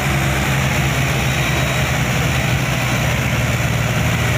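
Diesel engines of several farm tractors hitched in a line, running steadily under load as they haul a heavily loaded trailer through mud.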